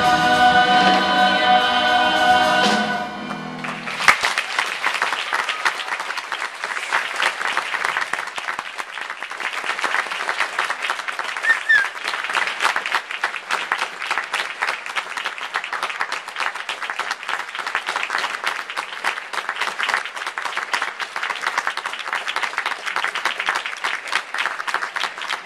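A mixed choir holds its final chord, which cuts off about three seconds in. About a second later the audience breaks into sustained applause.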